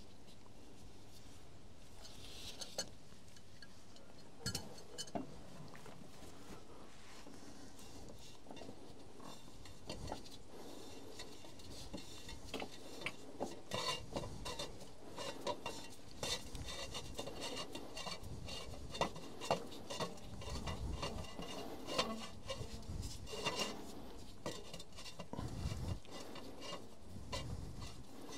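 Metal clinks, scrapes and knocks of filter housing parts being handled and fitted by hand as a new filter element is lined up and worked into place. The sounds are scattered at first and get busier about halfway through, with a few dull thumps.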